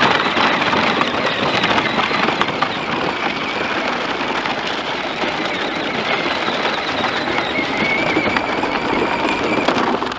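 Battery-powered ride-on toy tractor driving over gravel while towing a trailer loaded with a hay bale: its plastic wheels crunch and crackle on the stones, with a faint steady whine from the motor. It stops abruptly near the end.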